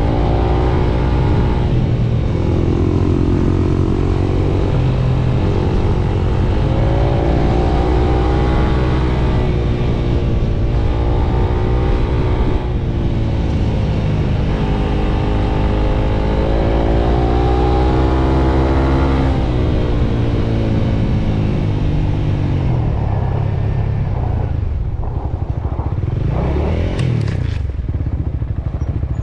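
Motorcycle engine running under way, its revs climbing and dropping again and again as it accelerates and shifts. It settles lower and rougher for the last few seconds, with a few sharp clicks.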